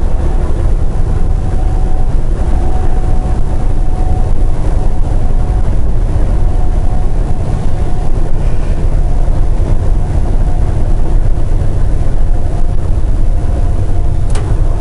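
Semi truck cruising at highway speed, heard from inside the cab: a steady, loud low drone of engine and road noise with a faint steady whine over it.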